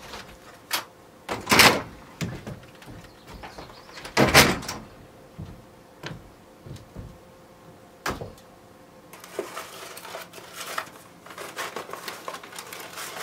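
A door being opened and shut, with two loud thuds about a second and a half and four and a half seconds in, then scattered light knocks and clicks and a soft rustling near the end.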